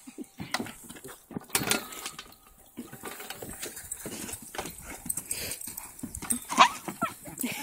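Small dogs playing tetherball: irregular thumps and scuffles as they jump at and knock a volleyball on a rope and scrabble in bark mulch, with short dog sounds. The loudest burst comes near the end.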